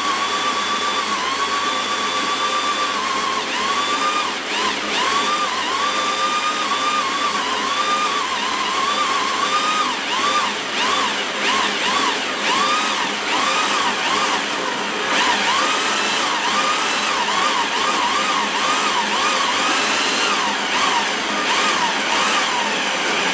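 Cordless drill driving a Wondermill Junior hand grain mill through a drill-bit adapter, grinding grain into flour. The drill's motor whine holds steady at first, then keeps rising and falling in pitch, over a constant grinding noise, and cuts off right at the end.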